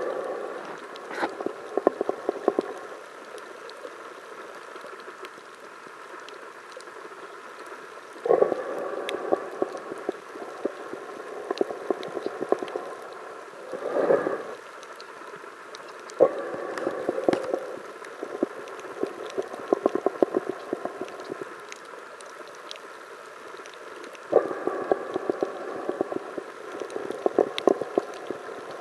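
Underwater water noise: every few seconds a burst of bubbling, rushing water with crackly clicks swells up and dies away. Between the bursts there is a quieter steady hiss with faint scattered clicks.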